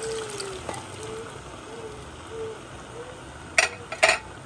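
Canned butter beans and their liquid poured into a pan, with two sharp knocks against the pan near the end. A low hooting tone repeats about twice a second.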